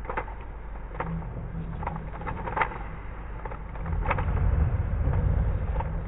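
Plastic 3x3 Rubik's cube clicking as its layers are turned: scattered sharp clicks over a low rumble that grows louder about four seconds in.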